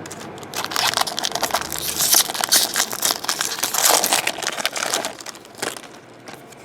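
Foil trading-card pack wrapper crinkling and tearing as a pack of 2012 Bowman Draft cards is opened, a dense rapid crackle for about five seconds.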